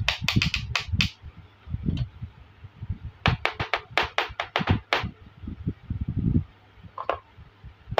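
Quick runs of light plastic clicks and clatter as small toy kitchen pieces are handled and set down on a tray, with soft low thumps in between; one run at the start, another from about three to five seconds in, and a single click near the end.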